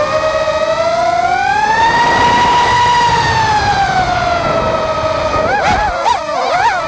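Four-inch FPV quadcopter's brushless motors (RCX H1306 3200KV on Gemfan 4045 props) whining, heard through the onboard camera. The pitch rises steadily to a peak about two to three seconds in as the throttle goes up for a climb, then eases back down. Near the end it wobbles quickly up and down several times as the throttle is blipped.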